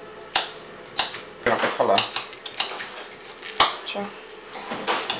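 Kitchen knife slicing bell peppers into strips on a hard cutting board: the blade knocks sharply on the board at uneven intervals, the loudest knock about three and a half seconds in.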